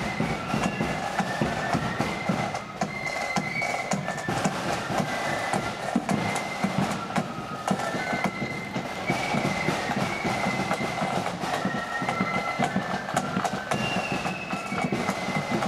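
A marching flute band playing a tune: a high flute melody over rapid, busy side-drumming.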